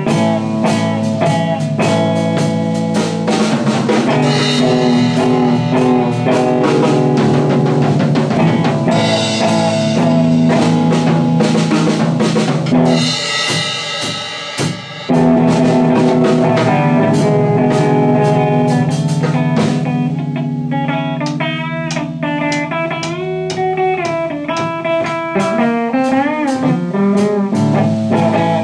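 Instrumental break in a slow blues jam: electric guitar playing over a drum beat, with wavering bent notes in the guitar line during the second half.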